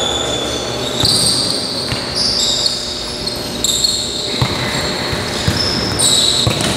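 Futsal ball being kicked and passed on an indoor court, a sharp thud every second or so, with players' shoes squeaking on the court floor in short high squeals throughout.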